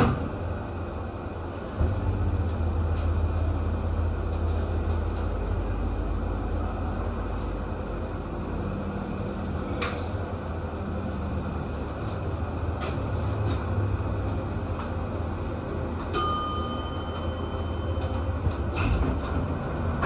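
Hydraulic elevator running, a steady low hum that sets in about two seconds in. A single chime rings out near the end.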